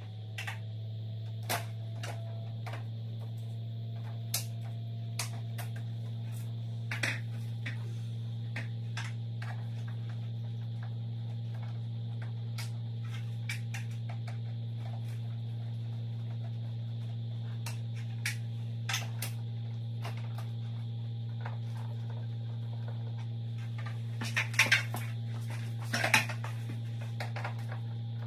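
Scattered clicks and taps of plastic parts and hand tools as a mini-split's wall-mounted indoor unit is taken apart, a few louder clusters of clicks near the end, over a steady low hum.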